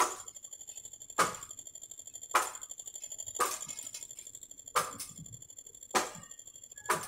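Paddle striking a tethered speed ball, seven sharp hits about a second apart at a slightly uneven pace, over a steady high buzzing.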